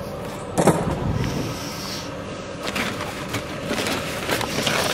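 Rummaging through a plastic trash can: papers rustling and things scraping and knocking against the bin, with a sharp knock about half a second in.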